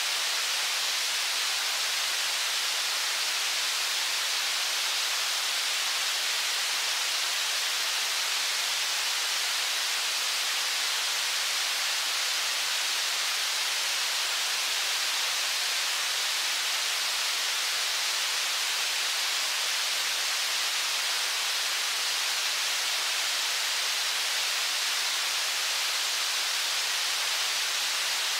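Rushing water of the Brooks River rapids below the falls: a steady, even hiss with no breaks.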